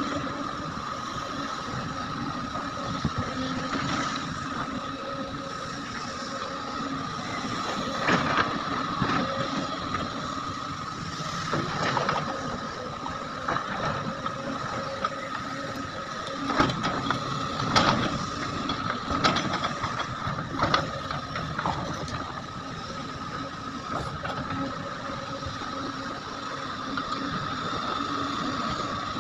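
Sunward hydraulic excavator running with a steady whine, and irregular loud clanks and knocks as it works loading nickel ore.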